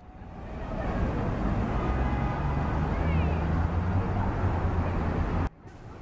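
City street traffic: a low engine rumble that builds over the first second, runs steadily, then cuts off abruptly near the end, leaving quieter street noise.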